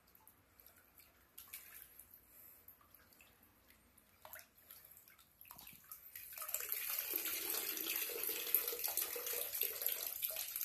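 Bathtub faucet running, its thin stream splashing into the tub. The splashing comes in about six seconds in, after a few faint clicks.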